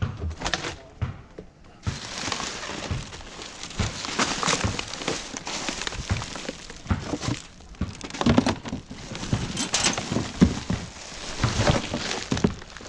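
Rummaging through bin rubbish: continuous rustling and crinkling of bags and packaging with scattered knocks and thuds of objects being moved.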